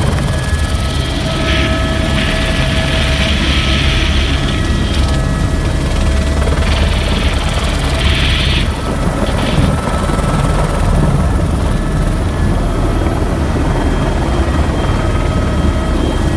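Helicopter heard from inside its cabin: a loud, steady rapid beat from the main rotor with several thin, steady whining tones from the engine and gearbox. A hiss swells and fades twice.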